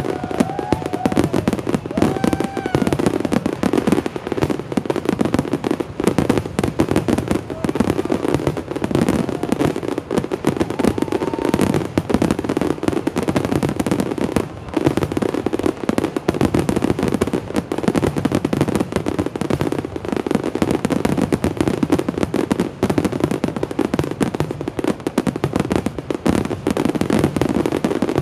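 Aerial fireworks finale: shells and crackers bursting in a dense, unbroken barrage of rapid bangs and crackling, with no pause.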